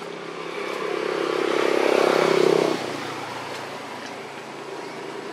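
Motor vehicle engine running, growing louder over about two seconds and then dropping off sharply, leaving a fainter engine drone.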